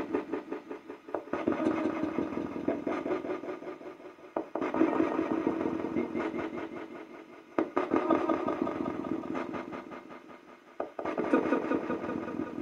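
Spirit communication device (spirit box) putting out choppy, buzzing radio-sweep noise through its echo. A new burst starts suddenly about every three seconds and dies away as it echoes, four times over.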